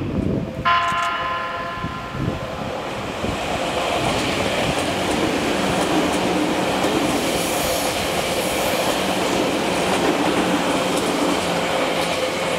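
Tokyu 5000-series electric train sounds a horn for about two seconds, then runs through the station at speed, its wheels clattering over the rail joints in a steady rush of noise that starts to fade near the end.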